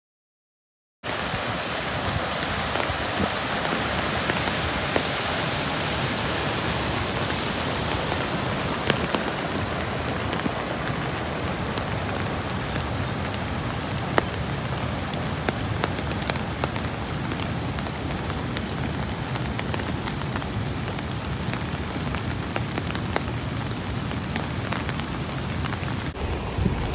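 Floodwater of a rain-swollen stream rushing over rocks: a steady hiss of water that starts suddenly about a second in, loudest at first and slowly easing, with a few scattered clicks.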